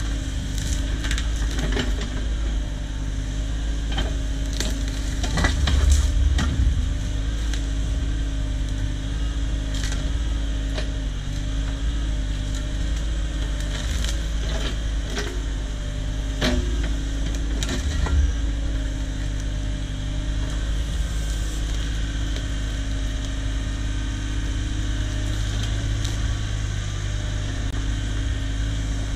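Cat 304 mini excavator's diesel engine running steadily while wood knocks and cracks as logs are handled, with the loudest knocks about six seconds in and again near eighteen seconds.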